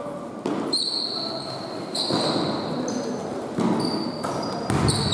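A basketball bouncing on a hardwood court, with several short high-pitched squeaks of players' sneakers on the floor in between.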